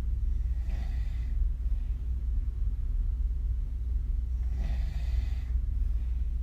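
A woman snoring with her mouth open, her lips blowing on the breath: two snoring breaths about four seconds apart, over a steady low hum.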